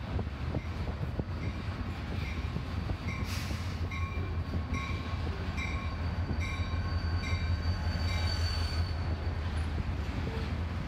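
Union Pacific diesel freight train rolling past close by: a steady heavy low rumble of locomotive engines and wheels on rail. Short high wheel squeaks repeat a little under twice a second through most of the pass.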